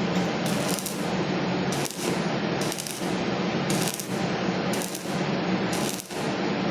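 Stick welding arc crackling and sizzling steadily as the electrode burns, with brief dips about once a second.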